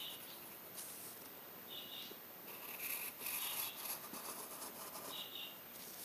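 Pencil scratching on paper in a series of short strokes, busiest about halfway through.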